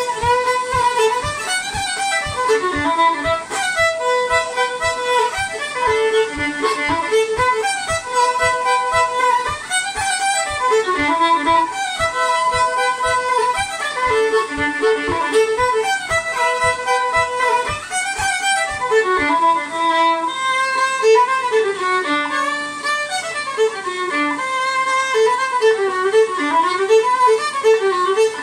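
Solo fiddle playing a lively fiddle tune, a quick run of bowed notes. A low thump keeps the beat about twice a second and stops about two-thirds of the way through.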